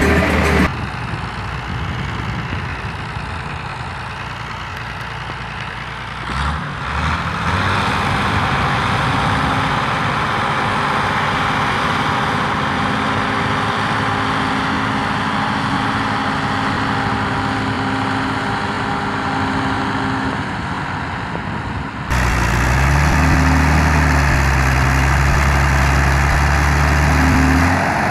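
Ursus farm tractor diesel engines running in the field, heard in several short clips one after another. After a cut a little past two-thirds of the way through, the engine is louder and revs up briefly.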